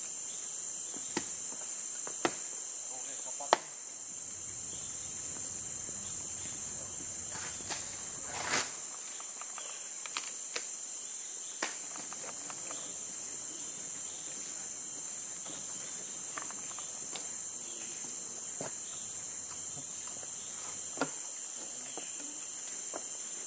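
Steady high-pitched drone of a tropical forest insect chorus, with scattered sharp snaps and knocks now and then.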